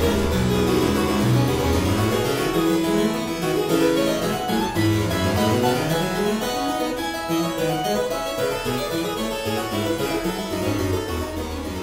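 Background music: a keyboard instrument playing quick rising and falling runs of notes.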